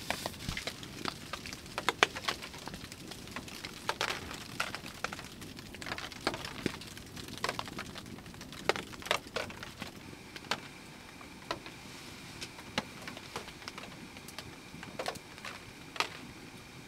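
Irregular soft ticks and pops in a hot tent: a wood fire crackling in the tent stove and rain pattering on the tent fabric.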